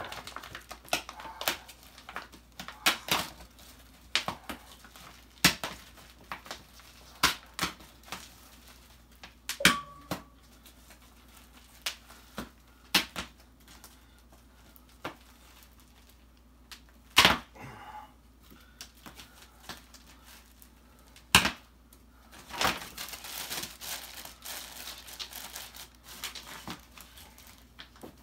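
Thick plastic wrapping on a rolled-up memory foam mattress crackling and tearing as it is pulled off by hand. Scattered sharp crackles come at irregular intervals, with a longer stretch of rustling near the end.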